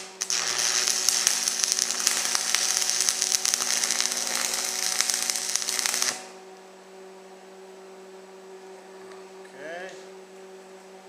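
Stick welding #4 rebar with a 7014 rod: the arc strikes right at the start, then crackles and hisses steadily for about six seconds and breaks off abruptly. A steady electrical hum runs underneath throughout.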